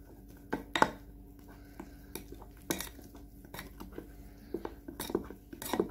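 Metal spoon stirring flour into thick pancake batter in a glass bowl, clinking and scraping against the glass at irregular intervals.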